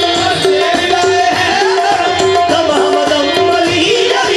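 Qawwali music: harmonium playing a stepping melody over a steady tabla beat.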